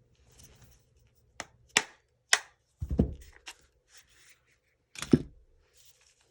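Plastic and metal parts of an airsoft Masada ACR being handled and pulled apart during disassembly: a string of sharp clacks, a dull thump about three seconds in and another knock about five seconds in, with light rustling between.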